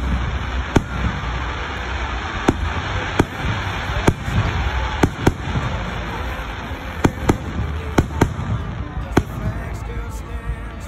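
Aerial fireworks display: about a dozen sharp bangs of bursting shells at uneven intervals, over a continuous rumble.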